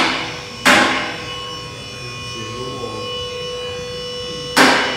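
Hammer blows on metal: a strike right at the start, another less than a second later and a third near the end, each ringing out briefly over a steady high hum.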